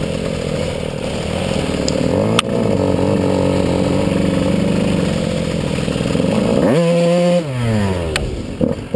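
Dirt bike engine pulling at low, uneven revs while climbing a steep snowy slope. One sharp knock about two seconds in. Near the end the revs jump suddenly, hold for under a second, then fall away.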